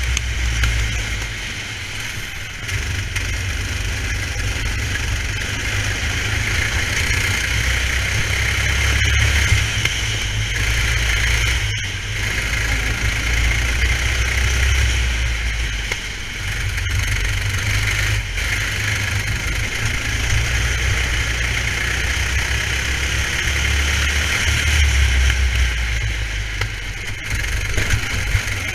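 Racing kart's engine running hard as the kart laps the circuit, its note rising and falling gently through the lap.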